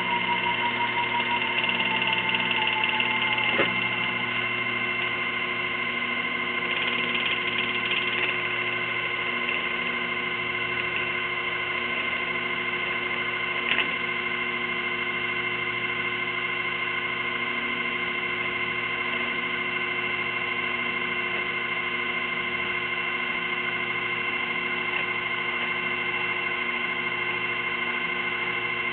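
Sherline 4000 mini lathe running steadily, its motor and spindle giving a steady whine made of several held tones. One of the tones slides down a little in the first few seconds, and there are faint clicks a few seconds in and about halfway through.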